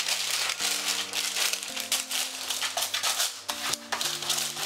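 Greaseproof paper crinkling and rustling as it is pressed and smoothed into a metal baking tin, with soft background music of held chords underneath.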